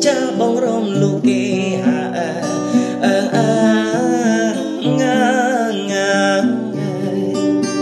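Music: a man singing a wavering melody over a guitar accompaniment.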